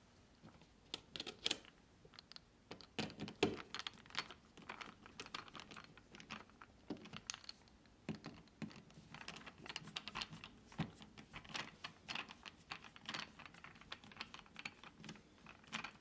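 Flathead screwdriver turning the screws of a wall outlet cover plate: a run of faint, irregular small clicks and scrapes of the blade in the screw slots and the plate against the wall.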